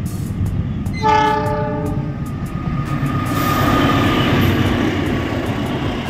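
A CC206 diesel-electric locomotive sounds one steady horn blast of about a second. It then passes close by hauling a passenger train, and the rumble of its engine and wheels on the rails swells to its loudest as the locomotive goes past.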